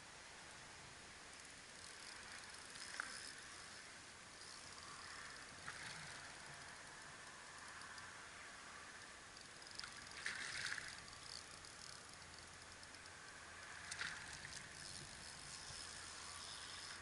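Faint steady hiss with a handful of short scuffs and splashy noises, the loudest about ten seconds in, as a hooked fish is played on a bent rod and reel.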